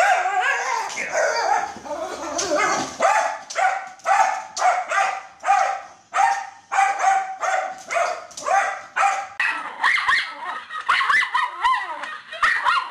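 Schnauzers barking: a run of sharp, evenly spaced barks about two a second, then higher, wavering yelps and whines in the last few seconds.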